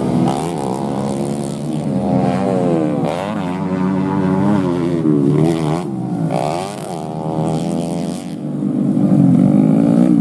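Engines of several underbone (bebek) racing motorcycles revving hard, the pitch climbing and dropping again and again as they accelerate through the gears and back off. One bike grows louder near the end as it passes close.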